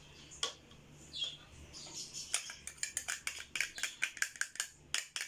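A utensil tapping and scraping against a small dish, knocking chopped spring onions into a mixing bowl: one tap, then a quick run of sharp taps about two seconds in.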